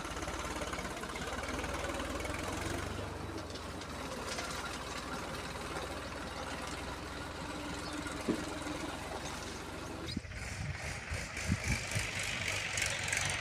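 Heavy diesel engine running steadily. About ten seconds in, the sound changes abruptly to a brighter, noisier one with a few low thumps.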